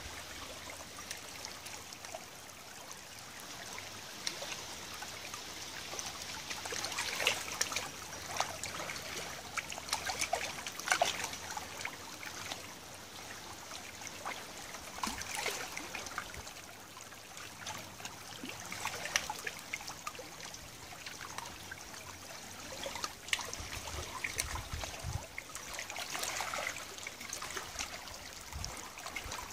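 Shallow tidal river water trickling and lapping at the edge of a stony, muddy bank, with many small irregular drips and splashes.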